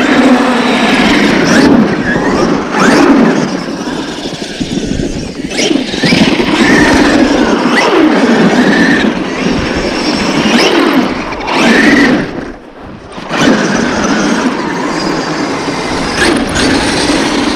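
Traxxas X-Maxx electric RC monster truck being driven: its brushless motor and drivetrain whine, the pitch rising and falling with repeated bursts of throttle. The sound drops away briefly about twelve seconds in.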